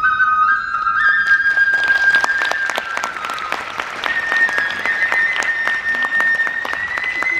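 A kagura transverse flute playing held, stepping notes over audience applause, which begins about a second in and thins out near the end.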